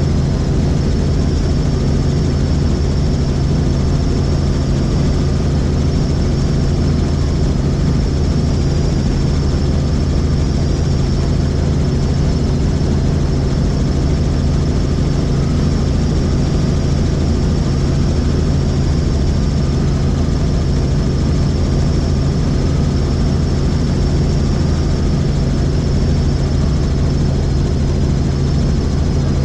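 Helicopter in flight heard on board: a steady, unbroken drone of rotor and engine with a thin high whine above it.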